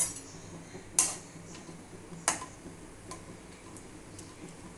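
Whole spices (star anise, cardamom, cloves) frying in hot ghee in an iron kadai, popping with two sharp cracks about a second apart, then a few faint ticks.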